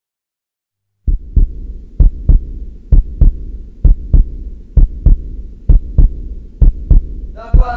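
Heartbeat sound effect: paired low thumps, lub-dub, about once every 0.9 seconds over a low drone, starting about a second in. Near the end, sustained musical tones come in over the beat.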